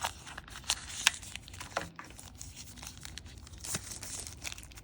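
Packaging crinkling and tearing, with several sharp clicks, as a small multi-tool is popped out of its box insert.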